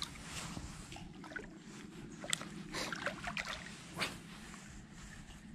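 Water trickling and sloshing over a steady low hum, with a few sharp clicks or knocks, the clearest about two seconds in and again about four seconds in.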